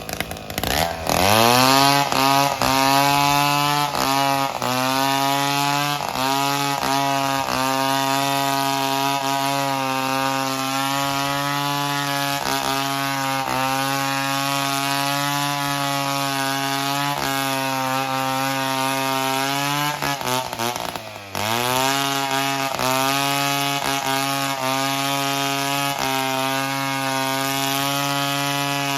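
Chainsaw running at high revs through wood, sweeping up to speed about a second in and held near full throttle with brief dips. About two-thirds of the way through it slows sharply, then revs back up.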